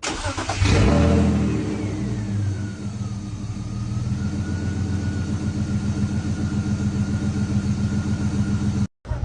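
Cold start of a turbocharged BMW M52B28 2.8-litre straight-six: it cranks, catches and flares up in the first second, then settles into a steady fast idle. A whine falls in pitch over a few seconds and then holds steady. The engine is running on the stock MAF with no tune.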